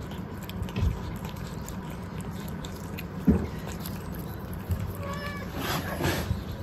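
A cat meows near the end, one clear cry followed at once by a rougher, breathier one, over a low steady background. There is a single short knock about three seconds in.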